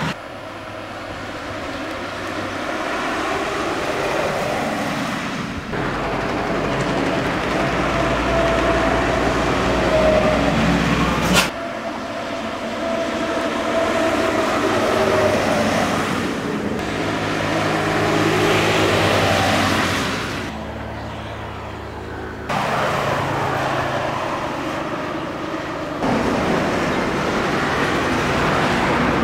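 Diesel intercity coaches driving past at speed, engine hum and tyre noise rising and fading. Several short passes are spliced together, so the sound changes abruptly several times, with a sharp click at one cut.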